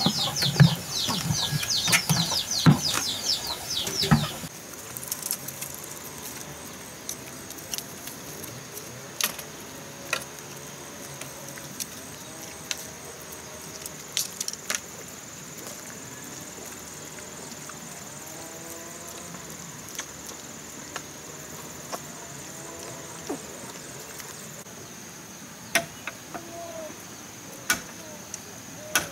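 Bran tipped from a plastic bucket into a pot of cooked feed, with heavy knocks and rapid high chirping for the first few seconds. Then a quieter outdoor background: a thin steady insect drone, wavering animal or bird calls, and now and then a sharp knock from bamboo being worked on the gate.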